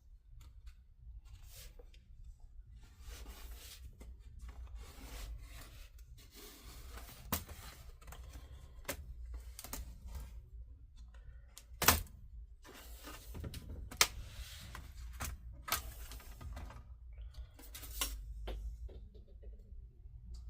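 Plastic spudger prying off the bottom cover of an HP EliteBook 840 G6 laptop: plastic scraping and rubbing, with scattered sharp clicks and snaps, the loudest about twelve seconds in.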